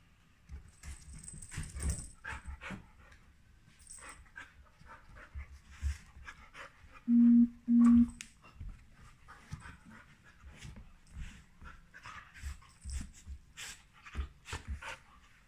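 Two small dogs playing together on a quilted sofa cushion: panting, with scuffling and pawing on the fabric. About halfway through come two short, steady low buzzes a moment apart, the loudest sounds here.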